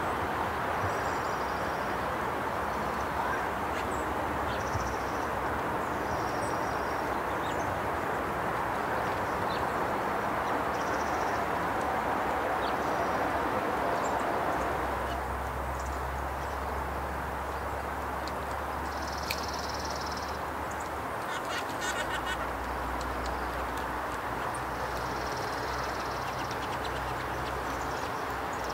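Steady rushing wind noise, with small songbirds giving short high chirps every second or two and a brief rapid rattle about two-thirds of the way through.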